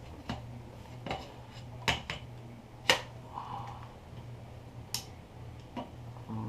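Sharp metallic clicks and clanks, about seven spread out, the loudest about three seconds in: the steel parts of an AR-15 upper (bolt, bolt carrier and charging handle) being handled and fitted back together by hand. A steady low hum runs underneath.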